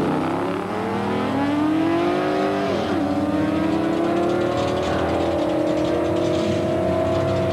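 A motorcycle and a sedan accelerating hard down a drag strip. One engine's pitch climbs steadily, drops sharply at a gear change about three seconds in, then climbs again slowly, with another upshift right at the end.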